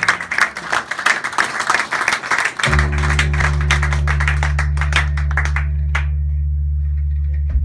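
Audience applause dying away into scattered claps. About two and a half seconds in, a steady low drone of several held tones cuts in and holds unchanged.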